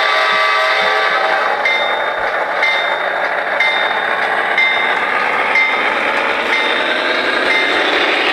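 HO scale model train running on its track: a steady motor whir and wheel noise, with a faint regular tick about once a second.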